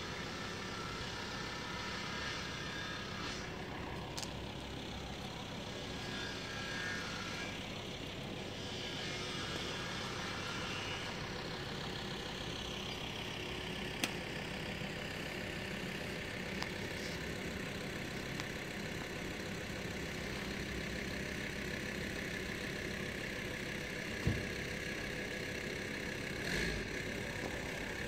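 Steady motor-vehicle noise, engines running at idle, with a few sharp clicks.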